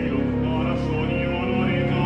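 Background music: a classical, operatic-style piece with a singing voice over sustained accompaniment.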